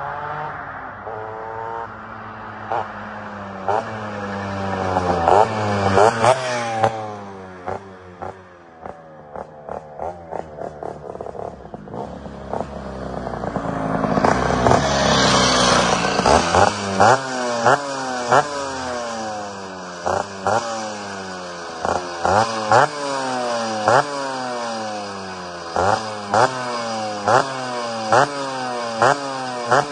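Two-stroke Vespa scooter engine fitted with a 144 cc Quattrini kit, swelling and fading as it is ridden along the road. In the second half it is revved in short throttle blips, roughly one a second.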